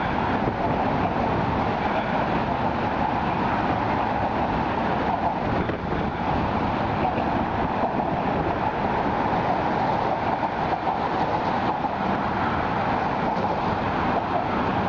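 Steady noise of road traffic on the Brooklyn Bridge roadway, a continuous even hum of passing vehicles with no breaks.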